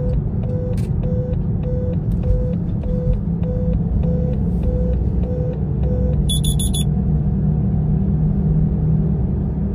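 Low road and engine rumble inside a moving car's cabin, with a soft regular pulse of about two beats a second that stops about six seconds in, just before a short burst of high electronic beeping.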